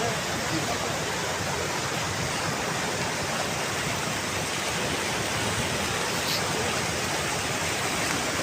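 Mountain stream rushing steadily, a constant, even wash of water noise.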